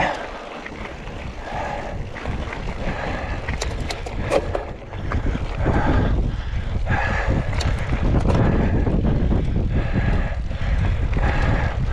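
Mountain bike riding down a rough trail: wind buffeting the camera microphone over the rumble of tyres on rock, with scattered rattling clicks from the bike. It gets louder about halfway through.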